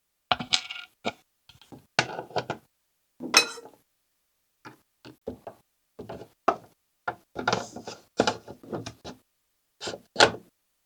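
Irregular knocks, clicks and rattles of ceiling-fan parts and hardware being handled and fastened, some in quick clusters.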